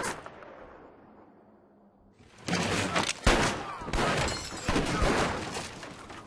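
A revolver shot at the start, its echo dying away over about two seconds. Then, from about two and a half seconds in, a dense run of rapid gunfire mixed with shattering and crashing, as in a film gunfight.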